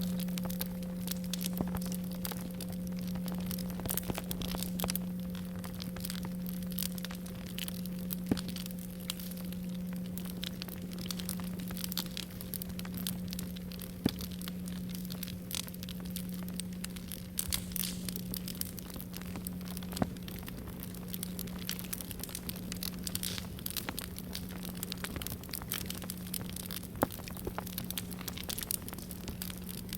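A singing bowl holds a low, steady ringing tone while its higher overtone dies away about halfway through. Under it a campfire crackles continuously, with a few louder pops.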